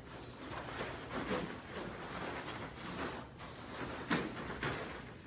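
Bare feet stepping and shuffling on foam mats, with karate uniforms rustling. There are a couple of sharper thuds near the end.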